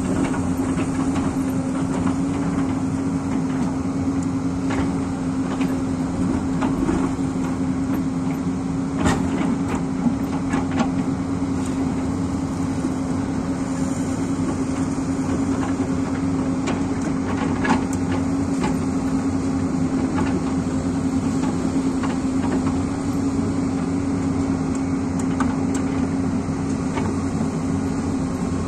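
Hyundai 220 crawler excavator's diesel engine running steadily with a strong hum while the bucket cuts into the hillside, with a few sharp knocks and scrapes from the bucket and falling earth, the loudest a little past halfway.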